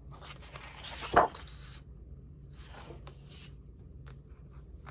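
Sheets of scrapbook paper rustling and sliding against each other as they are handled, with a sharper swish about a second in and a softer one around three seconds in.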